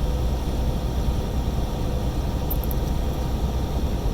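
Steady drone inside a semi-truck cab at highway speed: diesel engine and road noise, mostly low rumble.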